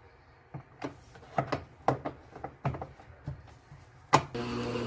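A run of knocks and clicks as the GE top-load washer (model GTW680BMR0DG) is closed up, then a sharp click a little after four seconds, after which a steady hum starts: the washer running on test with its newly replaced motor fan.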